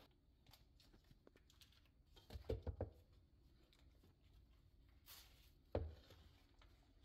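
Hand mixing and crumbling coarse ground nut, date and jaggery powder in a bowl, breaking up its lumps. It is mostly faint, with a few soft knocks about two and a half seconds in and a dull thump near six seconds.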